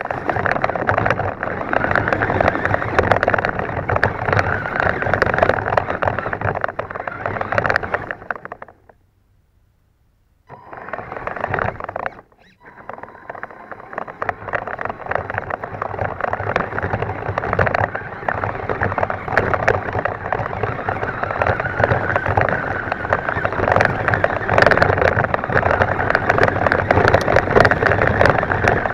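Himoto 1:10 RC truck driving through brush and over grass, heard close up from on board: its drivetrain running, with grass and twigs rattling against the body shell. About eight seconds in it stops for roughly two seconds, then drives on.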